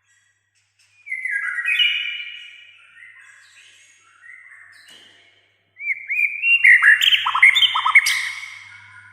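White-rumped shama (murai batu) singing in bursts of varied whistled phrases. The song starts about a second in, goes softer in the middle, then builds to a loud, rapid run of notes and upslurred whistles near the end.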